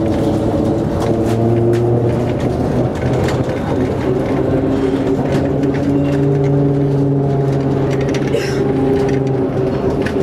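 Translohr rubber-tyred tram pulling away and running, heard inside the driver's cab: a steady electric hum over rolling rumble, the low hum stepping up in pitch about four seconds in, with a few faint clicks.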